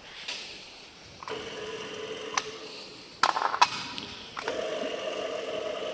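Welding positioner's table-drive motor starting about a second in and running with a steady hum, then stepping up to a higher pitch after about four seconds as the variable speed is turned up. A few sharp clicks and knocks in the middle are the loudest sounds.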